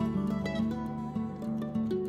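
Background instrumental music led by plucked acoustic guitar, notes changing in a steady rhythm.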